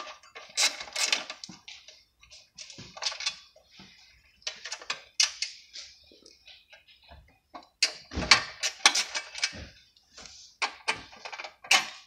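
A ratchet wrench and socket clicking in short runs, with metal clinks, as bolts are backed out of a small engine's cover.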